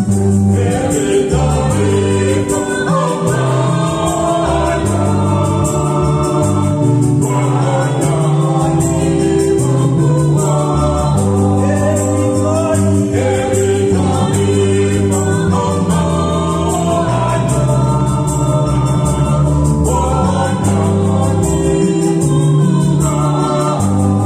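Small mixed group of men's and women's voices singing a Swahili psalm refrain in harmony, accompanied by an electric bass guitar holding low sustained notes and a Yamaha PSR-S970 keyboard playing an organ-like tone.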